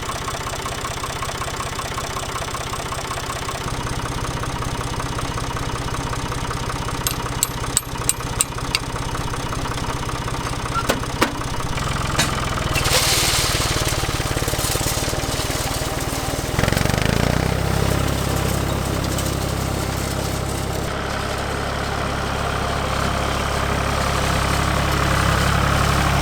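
Ford tractor engine running steadily as it pulls a hay rake windrowing cut grass, with a row of sharp clicks about seven to nine seconds in. The engine note shifts a little past halfway and again later.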